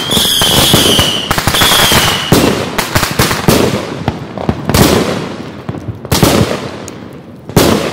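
Consumer aerial fireworks bursting overhead: dense crackling with a slightly falling whistle twice in the first two seconds, then a run of sharp bangs, the loudest about four and a half, six and seven and a half seconds in.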